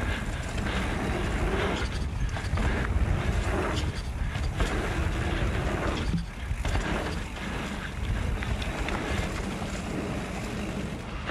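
Wind rushing over a camera microphone as a mountain bike is ridden down a dirt trail, with the rumble and rattle of the tyres and bike over the bumps. The noise eases briefly about six seconds in.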